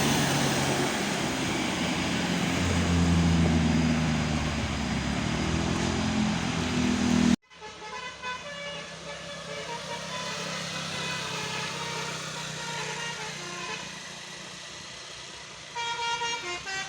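Loud vehicle noise with low droning tones. After an abrupt cut, a telolet multi-tone horn plays a tune of stepped notes, louder again near the end.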